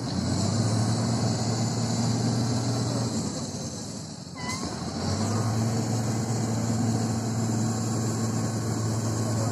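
Off-road trial truck's engine running hard under load at a steady pitch, easing off for a moment near the middle and then pulling again. A short high squeal sounds during the lull.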